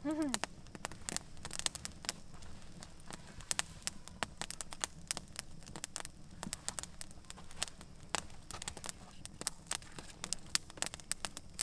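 Wood campfire crackling, with irregular sharp snaps and pops from the burning branches.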